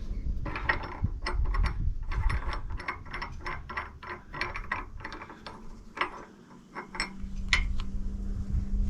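Grease gun being pumped on an excavator's grease nipple, its mechanism clicking irregularly several times a second as grease is forced into the pin joint. A low steady hum joins near the end.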